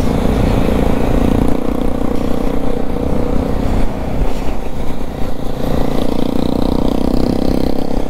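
Motorcycle engine running steadily at cruising speed, heard from the saddle, with wind rushing over the microphone and tyres on a wet road.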